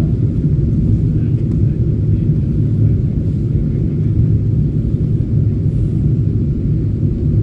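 Steady low rumble of cabin noise inside a Boeing 747-8 airliner in flight, engines and airflow heard from the passenger cabin.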